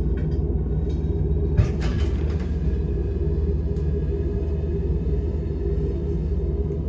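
Steady low rumble with an even hum underneath, and a couple of faint crackles about one and a half to two seconds in.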